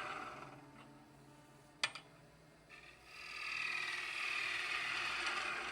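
Wood lathe turning a bowl, a gouge cutting the spinning wood with a hissing scrape that dies away, then a sharp click about two seconds in, and the cut starting again about three seconds in.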